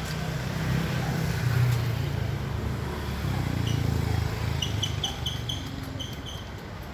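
Low, steady rumble of a running motor vehicle. About halfway through, a run of short high-pitched chirps starts, about three a second.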